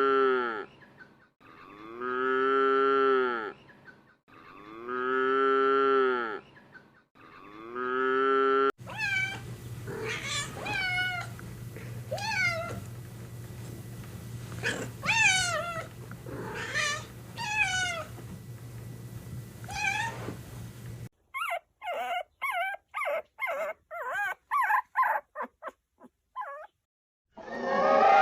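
A sequence of animal calls. First a cow moos three long times. Then a cat meows over and over for about twelve seconds with a steady hum behind it. Then comes a quick run of short calls from another animal, and a loud new call starts right at the end.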